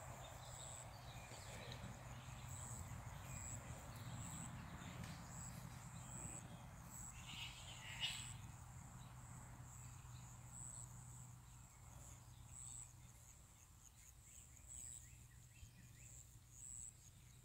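Faint outdoor ambience: an insect chirping in short high-pitched pulses at uneven intervals, over a low steady hum that fades away about two-thirds of the way through. A brief, sharper sound stands out about eight seconds in.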